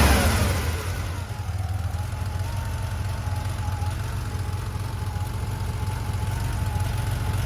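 Porsche 911 SC's air-cooled flat-six idling after a warm start, settling down in the first second and then running steadily. The owner presents the engine as misfiring on warm starts.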